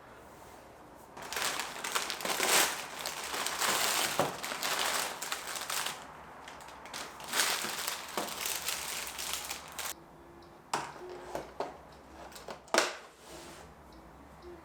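Crinkling and rustling, as of packaging or paper being handled, in two long stretches, then a few sharp clicks or knocks near the end.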